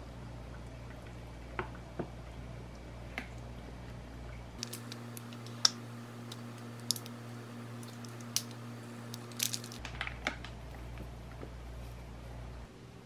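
Plastic squeeze bottles of teriyaki sauce and then mayonnaise being squeezed over food, giving scattered sharp squelching pops from the nozzles that are thickest during the mayonnaise. A low steady hum lies underneath.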